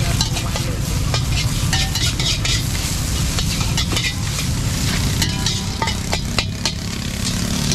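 Metal spatulas scraping and clinking against a wok as fried rice is stir-fried and sizzles, many quick strokes over a steady low rumble.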